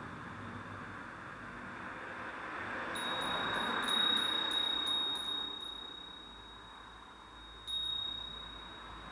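Nanbu cast-iron wind chime (furin) struck by its clapper in a quick run of strikes about three to six seconds in. It rings one clear, high, lingering tone that slowly fades, then is struck once more near the end.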